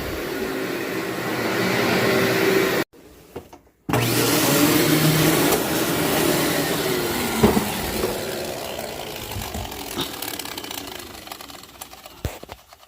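Vacuum cleaner running over dirty carpet, with a few sharp cracks as it picks up debris. The sound drops out for about a second, then returns and gradually fades away near the end.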